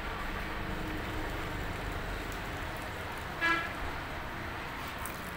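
Large aluminium pot of water boiling hard on a burner, giving a steady rumbling hiss. A short horn toot sounds once about three and a half seconds in.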